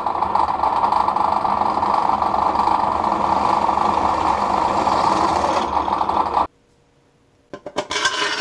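Bench drill press running with its bit cutting into a sheet of aluminium: a steady, loud motor whir that cuts off suddenly about six and a half seconds in. Near the end come a few short knocks from sheet aluminium being handled.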